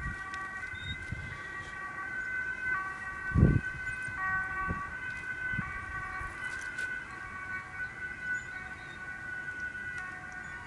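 Several steady, high siren-like tones held together and stepping between a few pitches every second or two, with a single low thump about three and a half seconds in.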